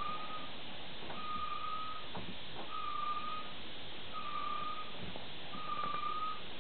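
Front brake or wheel-hub squeal from a 2002 VW Jetta TDI as the raised front wheel is turned by hand: a short, steady, high squeal that comes back about every one and a half seconds, once per turn, with faint knocks between. The owner suspects brakes adjusted too tight or a bad wheel bearing.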